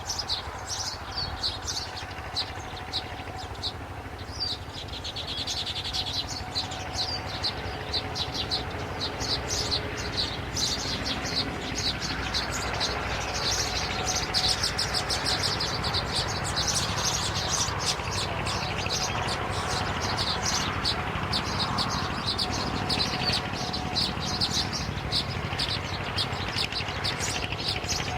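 Birds chirping in a rapid, continuous high-pitched stream, growing louder about twelve seconds in, over a low steady hum.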